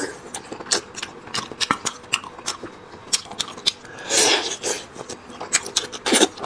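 Close-up mouth sounds of a man slurping and sucking the marrow out of braised lamb leg bones: many wet clicks and smacks, with a longer, louder slurp about four seconds in and another near the end.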